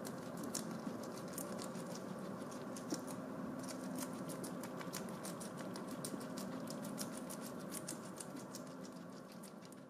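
Guinea pig chewing its food, a rapid, irregular run of small crisp crunches and clicks of its teeth, fading out near the end.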